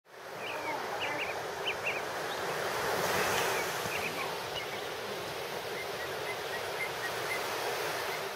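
Surf breaking on a beach, a steady wash of waves, with small birds chirping now and then, mostly in the first half.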